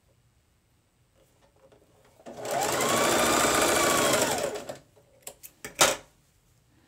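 Electric sewing machine stitching a straight seam along a folded fabric edge in one short run of about two and a half seconds, its motor pitch rising as it speeds up and falling as it slows to a stop. A few sharp clicks follow near the end.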